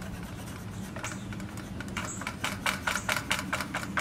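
Marker scribbling on the wooden limb of a crepe myrtle bow, marking where wood is to come off: a quick run of short scratchy strokes, about five a second, starting about halfway through and growing louder.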